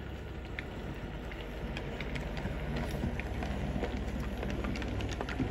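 OO gauge model train, a GWR Manor steam locomotive hauling a rake of 21-ton mineral wagons, running steadily along the track: a low steady hum of the motor and wheels with scattered light clicks.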